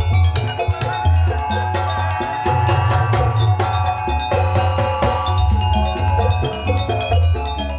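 Instrumental music with drums and struck mallet percussion keeping a steady beat, over a deep repeating bass drum.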